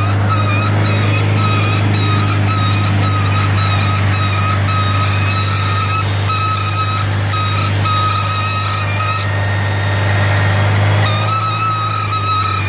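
Subaru Impreza GDB wheel hub giving a short, high squeak a little more than once a second over a steady low hum. The squeak breaks off for about two seconds near the end, then returns. It comes from the hub's outer oil seal, which has blown out inside the flange and is loose between the knuckle and the hub.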